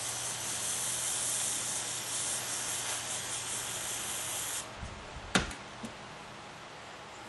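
Aerosol carburetor cleaner spraying through its thin extension straw into a small two-stroke carburetor's ports, flushing dirt out of the passages. It is a steady hiss for about four and a half seconds that cuts off, followed by a single knock.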